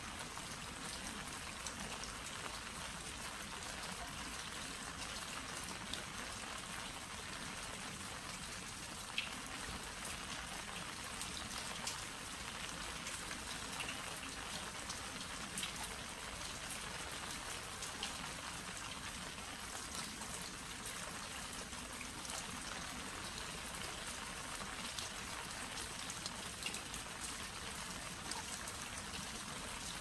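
Steady rain falling on glazed earthenware jangdok crocks and their lids, with scattered single drops ticking on the pottery.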